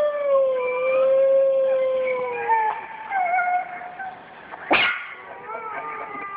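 Recorded wolf howls played back: several long howls overlapping at different pitches, gliding slowly downward and fading out after about three seconds. Shorter, quieter howl fragments follow, with one short, sharp, loud sound near five seconds in.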